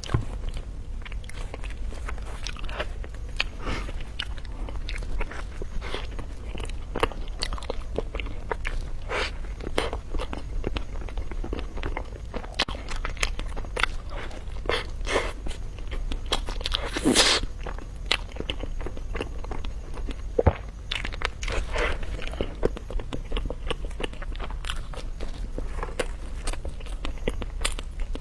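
A person biting and chewing food, with a steady run of short, sharp clicks and crackles and one louder one about seventeen seconds in.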